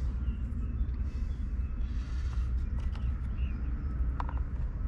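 Steady low outdoor rumble with a few faint, short clicks.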